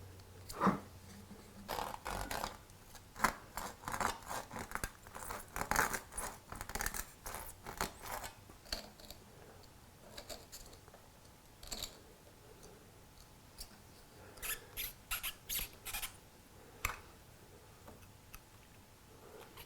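Scissors snipping padding material for clamp jaws: a quick run of short cuts, a pause, then another short run of snips.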